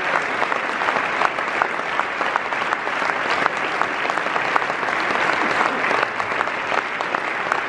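Large audience giving a standing ovation: many people clapping steadily, in a dense continuous patter of hand claps.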